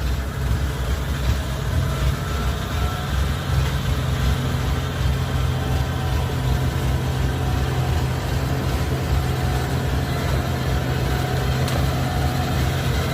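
Kubota combine harvester's diesel engine running steadily.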